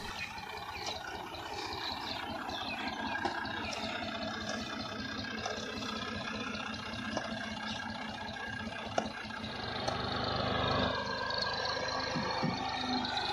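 Farm tractor's diesel engine running at idle with some rattle, a few sharp clicks over it, then picking up about ten seconds in as the straw-loaded tractor pulls forward.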